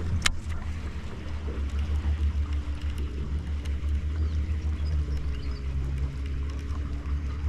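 A small boat's motor running with a low, steady hum, with one sharp click about a quarter second in.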